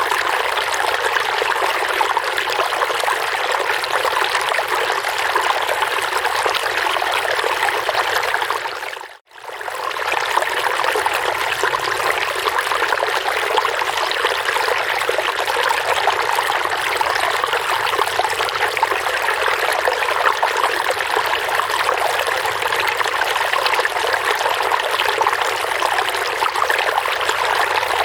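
Running water babbling steadily. It fades briefly to near silence about nine seconds in and comes straight back.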